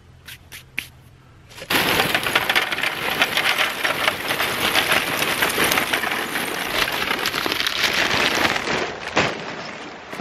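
A few light metal clinks as a steel grill grate is settled on sand. Then, about two seconds in, charcoal is poured from a paper bag into a metal chimney starter: a dense clattering rattle of lumps striking the metal and each other. It lasts about seven seconds and tails off near the end.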